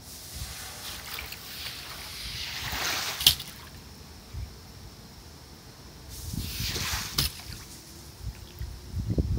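Shallow standing water on a flat roof sloshing and splashing in two swells about four seconds apart, each ending in a sharp tap.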